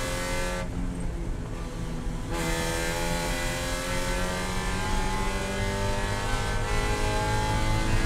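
Spec Miata race car's four-cylinder engine heard from inside the cockpit, running hard at high revs. The sound goes duller for about two seconds shortly after the start, then the revs climb steadily as the car accelerates.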